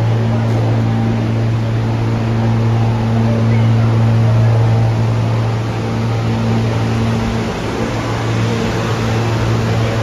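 Alstom R160A subway train standing at the platform with its doors open, its onboard equipment giving a loud, steady low hum.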